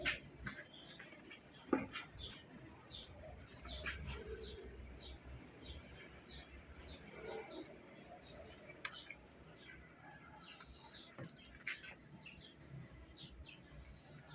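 Many short, high chirping calls repeating throughout, each a quick falling note, with a few sharp clicks in between.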